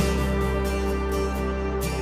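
Soft, slow instrumental music with held chords, a new chord coming in at the start and again near the end.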